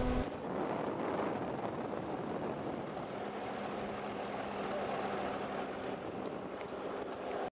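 Ultralight trike's engine turning over at low revs while taxiing: a quieter steady hum under a rushing noise. A louder engine note stops abruptly a fraction of a second in.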